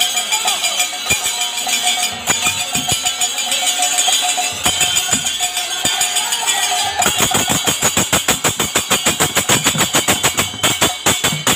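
Kirtan percussion: brass hand cymbals (kartal) clashing in rhythm with a drum. About seven seconds in the beat quickens into rapid, even strikes.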